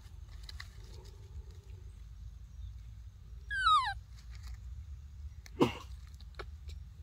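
A baby macaque gives one short, falling cry about halfway through, amid light rustling of dry leaves. A sharp, brief snap comes about two seconds later.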